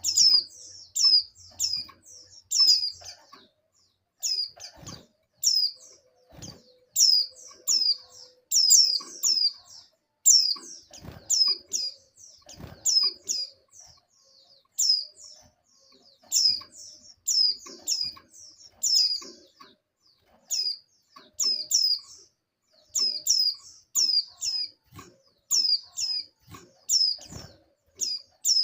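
Female white-eye (pleci) in breeding condition giving short, high, downslurred chirps in quick clusters of two to four, over and over: the call that draws a male. A few soft thumps sound under the chirps.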